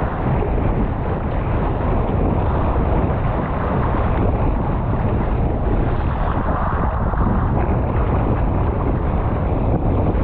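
Strong wind buffeting an action camera's microphone in a steady, heavy rumble, mixed with choppy sea water sloshing and splashing close by.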